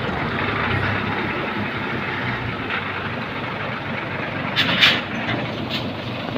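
REO 6x6 truck's engine running steadily at idle, a continuous low hum. About three-quarters of the way through, bamboo leaves and branches brush and scrape close by, briefly louder than the engine.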